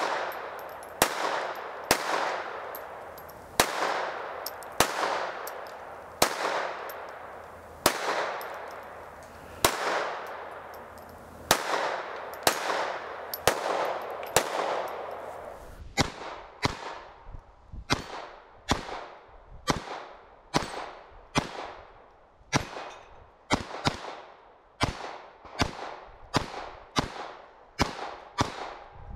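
Keltec P17 .22 LR pistol firing a string of single shots, each with a sharp crack and an echoing tail, about one every one to one and a half seconds. About sixteen seconds in, the shots come quicker, roughly three every two seconds, with shorter echoes.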